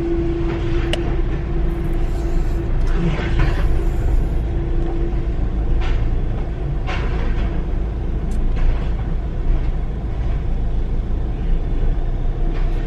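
Low, steady rumble of a car in motion heard from inside the cabin, with a steady hum that fades out about five seconds in and a few faint knocks.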